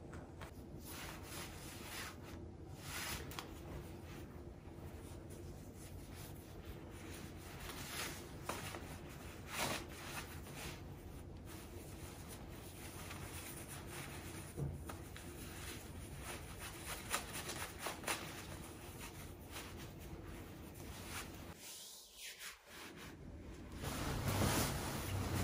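Fabric rustling and rubbing as a silk necktie is slid and pulled through a knot against a shirt collar, in many short soft strokes. Near the end comes a louder, longer rustle as a suit jacket is swung on.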